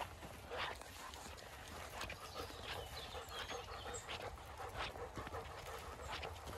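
Dogs and puppies running along a gravel lane: dog panting and small whimpering chirps from a running puppy, over irregular crunching steps on gravel.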